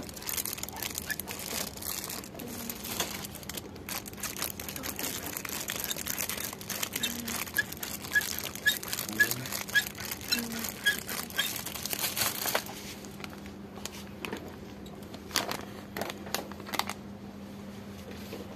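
Clear plastic packaging crinkling as wrapped handheld water-game toys are handled, dense and continuous for about the first two-thirds, then easing off to a few scattered rustles. A faint steady hum lies underneath.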